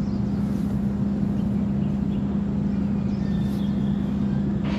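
A steady low mechanical hum over a constant rumble, with faint bird chirps about three seconds in and a brief sharp noise near the end.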